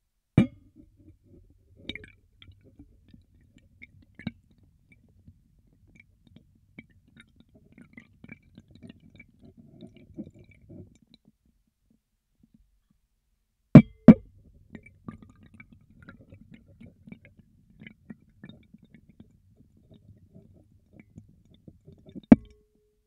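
Air bubbles blown through a tube into a bowl of water, heard underwater through a latex-covered microphone: two bouts of dense, low bubbling, each about nine seconds long, with a short quiet gap between. A sharp thump opens the first bout, two open the second, and one ends it.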